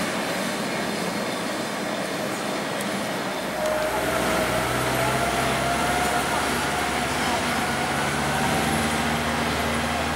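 Lisbon heritage tramcar running on street rails amid city traffic noise. About a third of the way in, a steady low hum joins, and a thin whine slowly rises in pitch as the tram comes round a curve.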